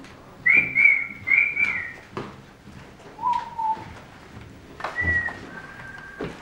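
Whistling in held high notes: a short run of steady notes, a single lower note about three seconds in, then two more held notes near the end, with a few faint knocks between them.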